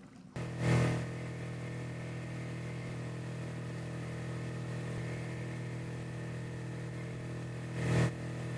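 A motor vehicle's engine running steadily at an even, unchanging pitch. It cuts in suddenly about a third of a second in and swells louder briefly just after and again near the end.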